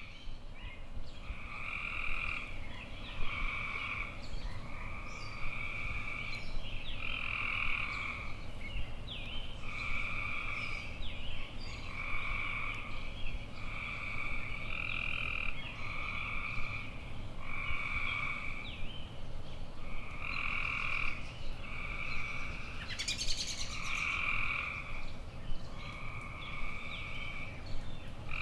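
Frogs calling: short calls, each under a second, repeating about every second and a half over a low steady rumble, with a brief crackle near the end.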